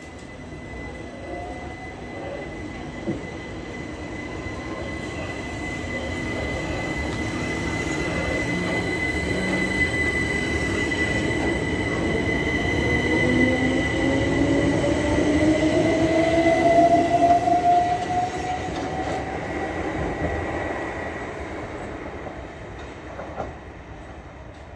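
Southern Class 377 Electrostar electric multiple unit passing along the platform, its traction motors whining upward in pitch as it accelerates. A steady high-pitched squeal runs under it, and the sound swells to its loudest as the train goes by before fading as it moves off.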